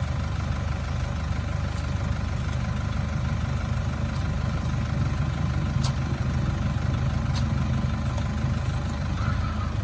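A 4x4 truck's engine idling steadily, with a couple of faint clicks about six and seven seconds in.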